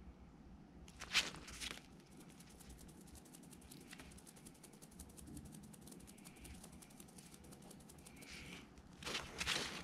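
Pet hedgehogs eating mealworms from a dish: a rapid run of faint crunching clicks as they chew. There are louder rustling bursts about a second in and again near the end as they shuffle and push against each other on the plastic floor covering.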